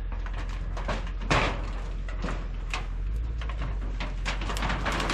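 Knocks and rattling clatter of a shed being taken apart, irregular, with the loudest bang about a second and a half in, over a steady low hum.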